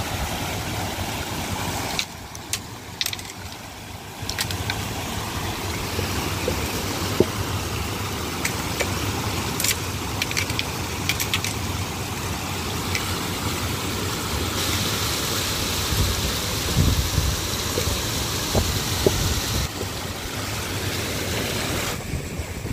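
Water pouring over a river check dam and rushing among the rocks below it: a steady rushing noise, with a few sharp clicks and knocks scattered through it.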